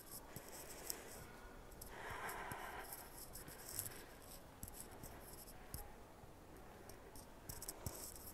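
Faint scratchy rustles and small clicks of a handheld camera being carried while walking, over quiet ambience, with a brief louder rush of noise about two seconds in.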